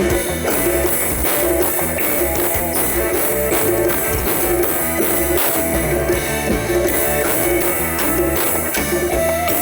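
Music with guitar and drum kit playing continuously with a steady beat.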